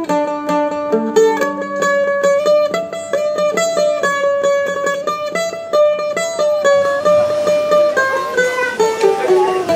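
Background music: a plucked-string melody played in rapidly repeated notes.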